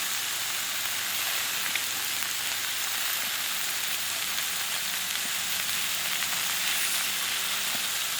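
Top sirloin steaks and shrimp sizzling on a hot Blackstone flat-top griddle, a steady frying hiss as the steaks sear.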